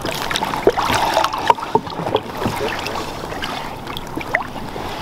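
Lake water sloshing and splashing at the side of a small boat around a lake trout held in the water before release, with scattered small knocks.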